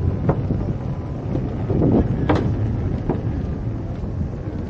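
Wind rushing over the microphone of a moving electric-unicycle rider, a steady low rumble, with a few sharp clicks, the loudest about two seconds in.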